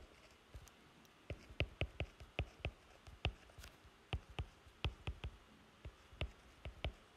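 Stylus tapping on a tablet screen while capital letters are handwritten: sharp irregular taps, a few per second.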